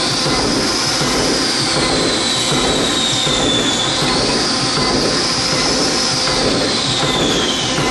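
CNC slotting machine running, with a steady mechanical clatter and a high whine that slowly rises and falls in pitch.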